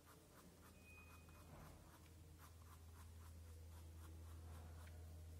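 Faint scratching of a pen on paper in quick short strokes, about three or four a second, as it cross-hatches shading. A low steady hum runs underneath.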